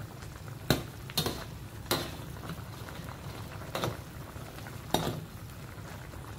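Chicken in ginger broth boiling over high heat, a steady bubbling, while a utensil stirs it and clinks against the pot about half a dozen times at irregular intervals.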